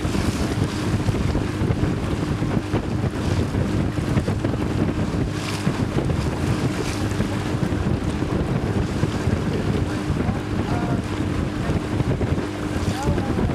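A boat's motor runs with a steady hum, under heavy wind buffeting the microphone and choppy river water splashing.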